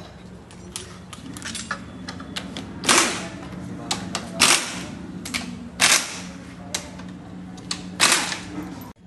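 Sharp metal-on-metal knocks from tools working on a 1.5 TDCi diesel engine during teardown, with four loud strikes spaced a second or two apart and lighter clicks and taps between, over a steady low hum.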